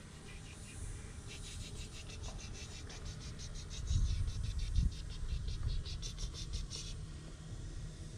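An insect chirping in a fast, even, high-pitched pulse, about five or six chirps a second, starting about a second in and stopping near the end. Under it is a low, uneven rumble that swells briefly about halfway through.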